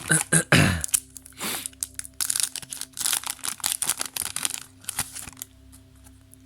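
Foil booster pack wrapper being torn open and crinkled, with the cards handled: a run of sharp crackles and rustles, densest in the middle, dying down near the end.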